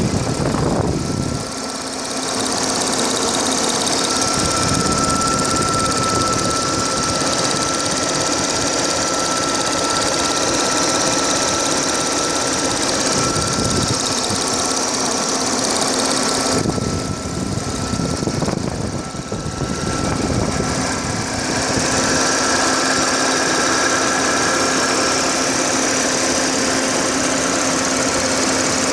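Audi A6 4F 3.0 TFSI supercharged V6 idling, heard from above in the open engine bay, with the clicking noise the owner is trying to trace running through it and a thin steady whine. The sound dips and changes twice, briefly about two seconds in and again a little past halfway, as the phone moves over the engine.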